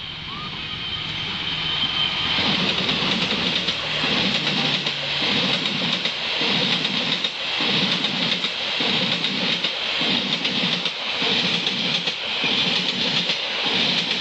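Sancaka passenger train passing close at speed: the diesel locomotive grows louder over the first couple of seconds as it comes by, then the coaches rush past with a regular clickety-clack of wheels over the rail joints.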